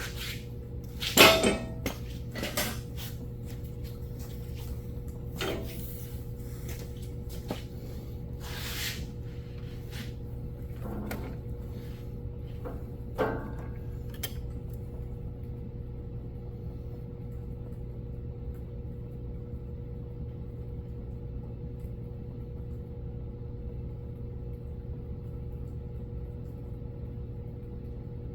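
A few sharp knocks and clinks of parts or tools being handled, the loudest about a second in, over a steady low hum; after about fourteen seconds only the hum remains.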